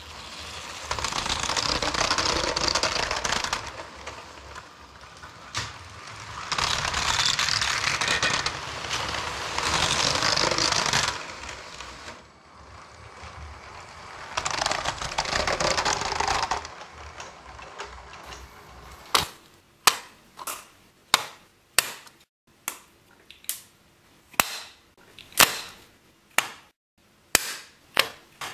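LEGO toy train running across plastic track, a rattling noise that swells and fades as it passes, several times over. From about two-thirds in, a series of sharp separate plastic clicks and clacks, roughly one a second.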